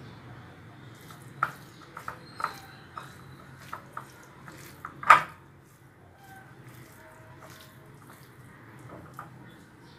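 Hands mixing chicken pieces with spices in a ceramic bowl: wet squishing with a run of sharp clicks and knocks against the bowl, the loudest about five seconds in, over a low steady hum.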